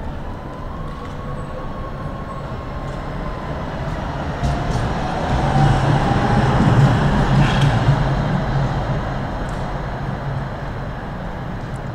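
Electric tram passing close by: a low rumble of wheels on rails swells to a peak and fades as it goes away. A few sharp clicks come as it nears and passes, over a thin whining tone.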